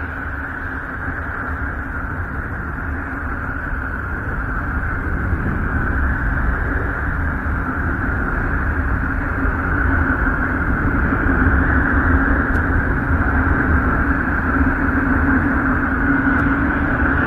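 Space-sound drone presented as the sound of the planet Uranus: a steady low rumble with a hissing band and a held hum tone, slowly growing louder.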